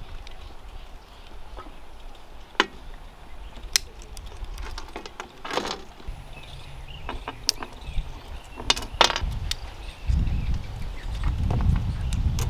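Scattered clinks and knocks of metal kitchen utensils being handled, with a low rumble joining in about ten seconds in.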